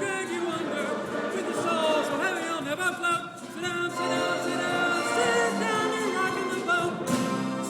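Live choir and orchestra performing a Broadway show tune, with voices singing sustained notes with vibrato over the orchestra.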